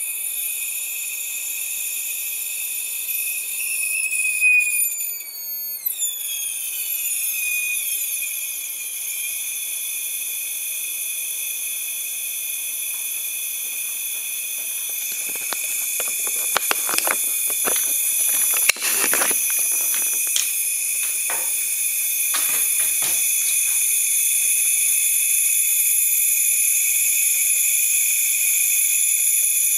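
High-frequency high-voltage supply driving a xenon plasma tube: a steady high-pitched whine of several tones over a hiss. Some of the tones glide downward about four to eight seconds in. A run of sharp crackles comes between about fifteen and twenty-three seconds in.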